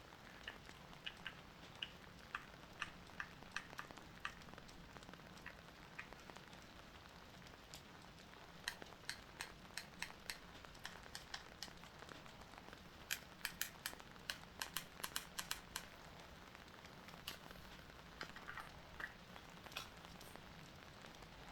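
Faint, irregular sharp clicks and ticks over a low steady hum, bunching into quick clusters twice in the middle.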